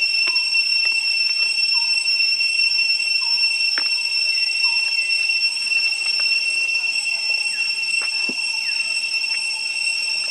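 Insects droning in a steady high-pitched whine, with faint short chirps now and then and a few sharp clicks.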